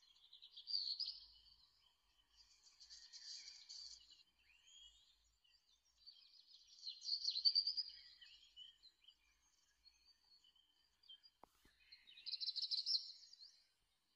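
Small birds chirping and trilling in four short high-pitched bursts a few seconds apart.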